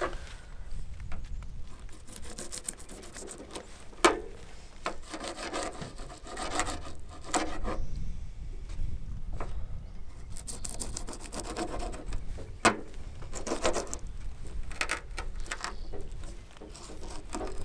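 Knife blade sawing and scraping through a whole bluegill on a plastic cutting board: repeated rasping strokes in short runs, with two sharp knocks along the way.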